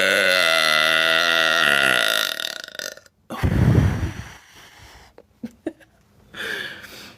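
A woman's long, deliberate belch, pitched and wavering, that fades out about two and a half seconds in. About a second later comes a shorter, lower, rougher burst.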